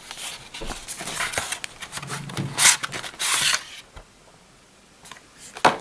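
Paper and cardboard packaging being handled: the printed insert and the box rustling and sliding, with two longer, louder swishes around the middle. A few light taps follow near the end.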